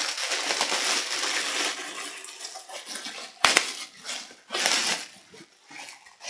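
Plastic packaging crinkling and rustling as a package is torn open and the bag handled, with a sharp crackle about three and a half seconds in and looser rustles after.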